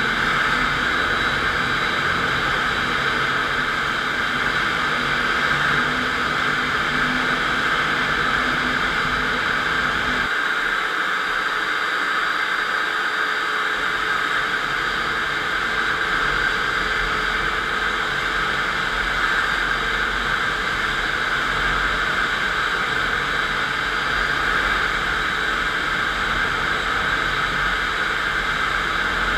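FastPrep concrete floor grinder running steadily, its 16-grit diamond grinding plates cutting the concrete floor, making an even, unbroken grinding noise. The low rumble under it drops away for a few seconds about ten seconds in.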